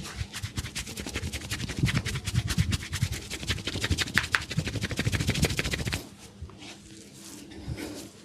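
Rapid, even pats or slaps of hands on an oiled head and hair, stopping about six seconds in, after which only fainter, scattered sounds of hands on the hair remain.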